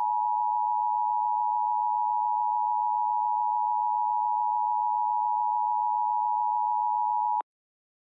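Emergency Alert System attention signal: two steady tones near 1 kHz sounded together, the standard 853 and 960 Hz pair, held unbroken and then cut off sharply near the end. It is the warning that an emergency voice message is about to follow.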